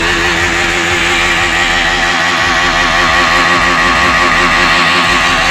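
KTM Duke motorcycle engine held at high revs in a burnout, the rear tyre spinning against the ground, a loud steady note that wavers slightly in pitch with a harsh hiss over it.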